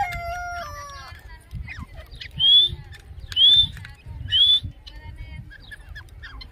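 Grey francolin (desi teetar) calling: three loud rising whistled notes about a second apart. A rooster's crow trails off, falling in pitch, in the first second.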